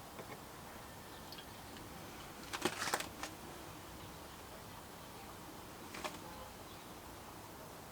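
Close handling noises of flocking work on a small model: a short cluster of soft clicks and rustles about two and a half seconds in, another briefly about six seconds in, over faint room hiss.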